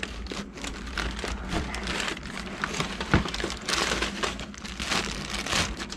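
Clear plastic bag crinkling and rustling as it is handled and pulled off, with irregular crackles throughout and one sharp knock about three seconds in.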